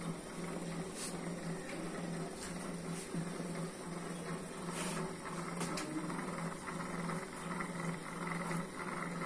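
A low hum that pulses on and off about twice a second, over a faint hiss with a few soft clicks.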